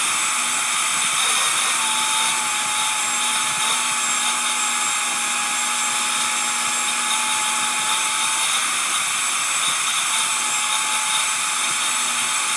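Vacuum cleaner running steadily, a rush of air with a constant motor whine, as its hose cleans a car's interior.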